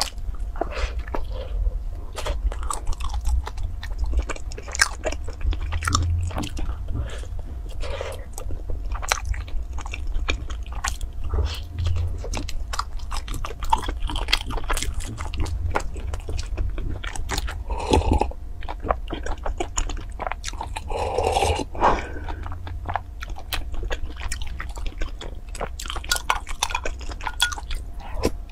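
Close-miked eating of a soft filled bun: biting and chewing, with many wet mouth clicks and smacks in an irregular stream. A steady low hum runs underneath.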